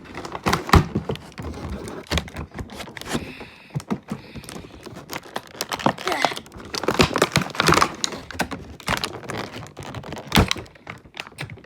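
Plastic blister packaging being pried at and handled by hand to free a die-cast Hot Wheels car: a run of irregular clicks and knocks.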